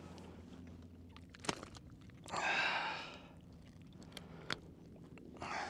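Steady low hum with a few sharp clicks and a rushing, rattling sound lasting about a second, about two seconds in, as fishing tackle is handled on a boat.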